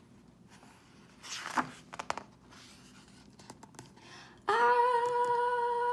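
A picture-book page being turned, a papery swish with a few clicks about a second and a half in. About four and a half seconds in, a woman's voice starts a long, steady, high 'aaah' yell, held on one pitch.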